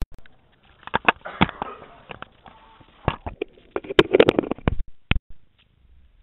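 Handling noise from a kart-mounted camera being fitted and adjusted by hand: a run of sharp knocks and clicks with scraping between them, the busiest stretch around four seconds in and the last knock about five seconds in.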